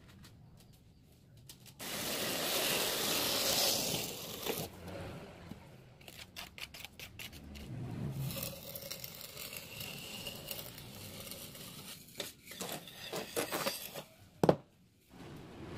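A tool scraping along wet sand-and-cement mortar as fascia mouldings are shaped by hand without a mould, in two long stretches of scraping, followed by a few clicks and one sharp knock near the end.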